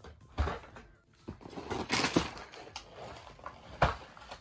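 Snack packages being handled and set down: a few sharp knocks of packaging against a surface, with plastic wrapping rustling and crinkling in between.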